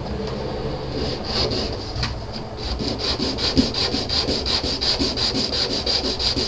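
Small resin ejection-seat casting rubbed back and forth on a coarse sanding stick, flattening its underside where the pour stub was cut off. The sanding strokes are loose at first, then settle into a fast even rhythm of about five a second from about two and a half seconds in.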